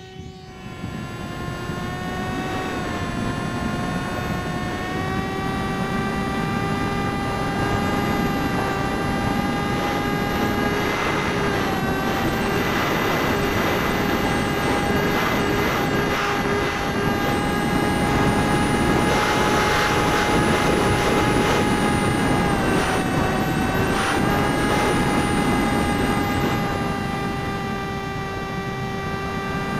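Parkzone Icon A5 foam RC plane's electric motor and pusher propeller whining steadily, heard close up from the camera on its cockpit, with air rushing over the microphone. The pitch dips briefly a few times.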